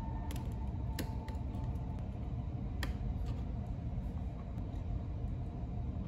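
A few faint, scattered clicks and light taps from hands handling wires and screw terminals on an electrical wiring board, over a low steady hum.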